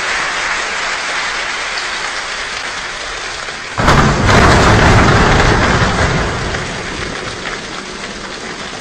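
A large choir imitating a rainstorm with body percussion: a steady patter of hand clapping and slapping, then about four seconds in a sudden, louder downpour with a deep rumble like thunder, easing back to a lighter patter near the end.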